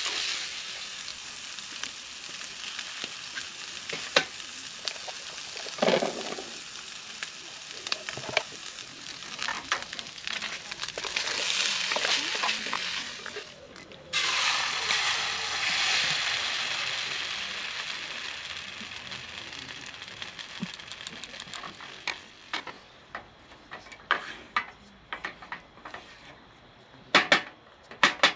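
Diced meat sizzling as it fries in a pan on a portable gas stove, with a wooden spatula scraping and knocking against the pan as it is stirred. In the second half the sizzle fades as tomato sauce has been poured in and is stirred, and a few sharp knocks of the spatula on the pan stand out near the end.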